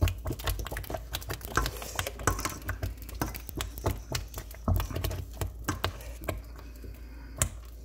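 Spoon stirring a pot of thick cornmeal porridge, giving a stream of irregular clicks and taps that thins out near the end.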